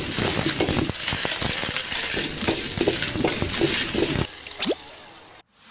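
Loose plastic keycaps clattering against each other in a dense, continuous rattle of small clicks, as if stirred or shaken in a pile. It thins out to a few scattered clicks about four seconds in and stops just before the end.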